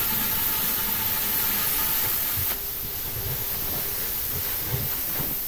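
Plasma cutter cutting the steel of a propane cylinder: a steady hiss of the arc and its compressed air. The hiss drops a little about two and a half seconds in.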